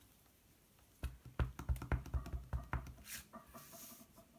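A clear acrylic stamp block and an embossing ink pad tapped together quickly many times to ink a butterfly stamp: a run of light knocks about a second in that lasts some two seconds. Then comes a brief light rustle.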